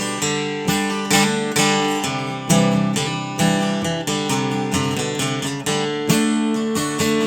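Acoustic guitar strummed in a steady rhythm, chords with no singing.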